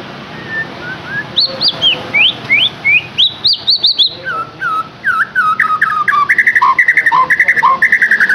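A songbird singing a varied whistled song. It opens with a run of quick rising whistles, then drops to lower slurred notes that speed up into rapid repeated phrases.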